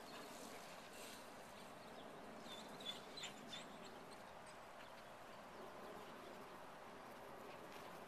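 Quiet outdoor ambience: a faint steady hiss with a few brief, high chirps about three seconds in.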